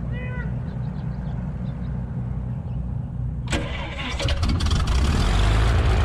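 A 1979 Piper Cherokee Six's engine starting: a low, uneven rumble, then about three and a half seconds in it catches and runs louder and fuller.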